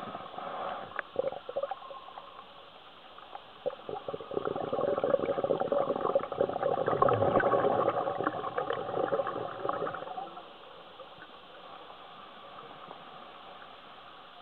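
A scuba diver's exhaled air bubbling out of the regulator underwater: a long gurgling rush of bubbles from about four to ten seconds in, with a few shorter bubble bursts near the start.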